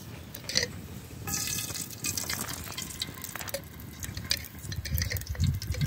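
Kitchen sounds: small clinks and scrapes of a utensil working in a pot, with a low rumble about five seconds in.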